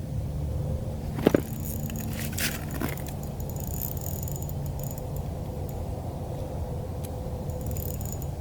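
Steady low rumble with a faint hum, with a few light clicks and jingling rattles about a second in and again near three seconds.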